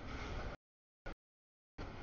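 CSX double-stack container train rolling through a grade crossing: a broad rumble of wheels and cars on the rails. It is heard only in chunks broken by dead-silent dropouts: about half a second at the start, a brief blip about a second in, and again near the end.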